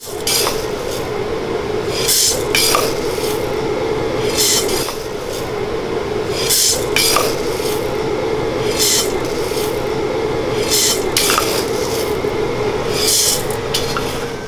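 Hot-air coffee roaster running: a steady hum with a hissing rush that swells about every two seconds.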